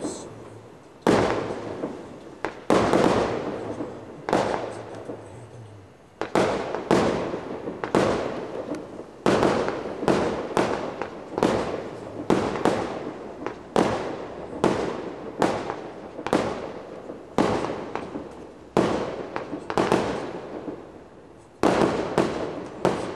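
A fireworks cake firing shot after shot: sharp bangs about once or twice a second, each fading away before the next, with a brief pause about five seconds in.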